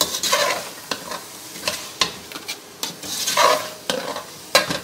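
Meat sizzling as it fries on a high gas flame in an aluminium pot, stirred with a metal spatula that scrapes through the pieces in two swells, at the start and about three seconds in, and knocks sharply against the pot several times.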